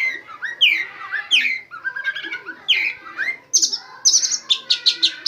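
Oriental magpie-robin (kacer) singing a varied, loud song of whistled downward-sweeping notes, then from about three and a half seconds in a rapid run of sharp high notes. The song is laced with mimicked white-rumped shama (murai batu) phrases.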